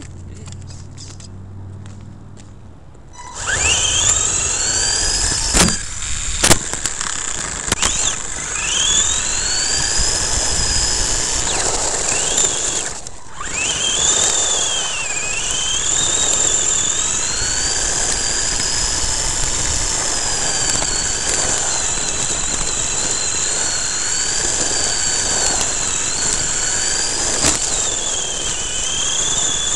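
Onboard sound of an Ansmann SC4 RC short-course truck. About three seconds in, its electric motor starts whining, the pitch rising and falling with the throttle, over the rush of tyres on gravel. There are two sharp knocks soon after it sets off, and a brief cut-out near the middle.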